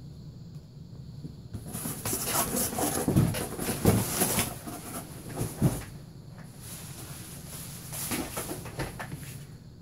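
A cardboard shipping box and its packing material rustling and scraping as they are handled, with a few sharp knocks in the middle. A second, shorter bout of rustling comes near the end.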